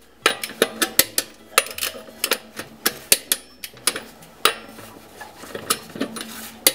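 Ratchet of a torque wrench clicking in quick runs as it is swung back and forth on the lug nuts, which are being tightened to 85 foot-pounds.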